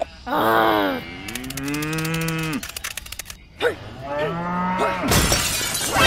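A series of drawn-out, voice-like calls that bend in pitch, each lasting about a second, with a short crash-like burst about five seconds in.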